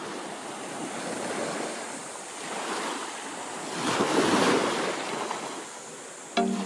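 Small sea waves washing onto a sandy beach, with wind on the microphone; one wave surges louder about four seconds in. Music with plucked notes starts just before the end.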